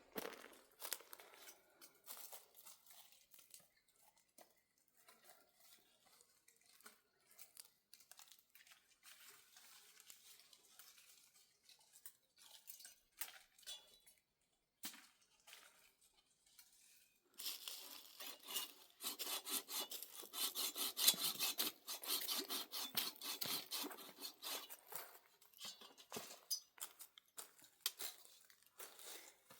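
Irregular crackling and tearing sounds, sparse at first, then denser and louder for about ten seconds from around seventeen seconds in.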